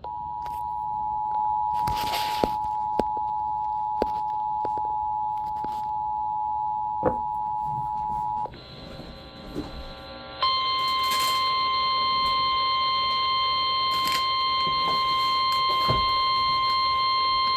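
Emergency Alert System two-tone attention signal from an FM radio broadcast, a steady dual-pitch alert lasting about eight and a half seconds. After a brief hissy break, the NOAA Weather Radio single-tone 1050 Hz warning alarm starts about ten seconds in and holds steady, the signal that a warning message is about to follow. Faint clicks of radio static come through.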